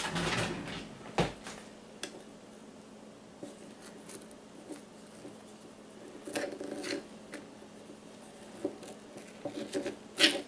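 A utensil scraping and knocking at the rim of a glass jar while digging into stiff, overflowed sourdough starter. There is a sharp tap about a second in, and brief scraping sounds around six seconds in and again near the end.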